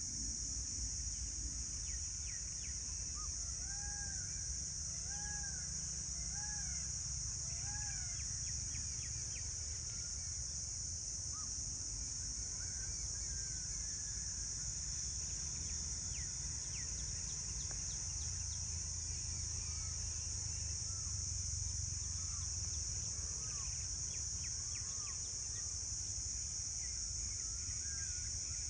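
A steady, high-pitched insect chorus over a low outdoor rumble, with a bird calling faintly: four short, arched notes a second or so apart about four to eight seconds in, and scattered chirps later.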